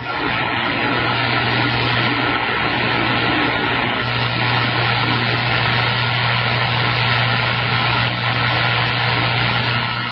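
CB radio receiver static: a loud, steady hiss with a steady low hum underneath and no voice on the channel.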